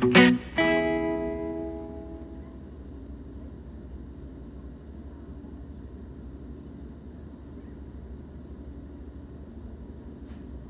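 A strummed acoustic guitar piece ends on a final chord that rings out and fades over a couple of seconds. After it comes the steady low rumble of a suburban electric train, heard from inside the carriage as it runs alongside a station platform.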